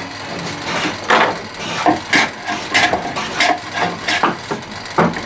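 Irregular wooden knocks and clatter, about half a dozen, as a wooden box and loose pieces of wood are handled and set down on a workbench.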